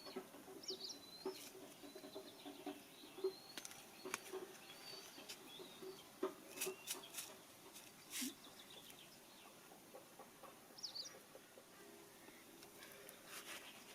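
Faint bird calls: short high chirps and whistles over a low, rhythmic clucking, with a few brief sharp clicks.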